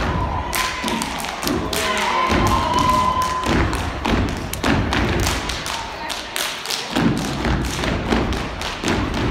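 Step team stepping: rapid stomps on a wooden stage floor mixed with hand claps and body slaps, in a quick rhythm of many sharp hits.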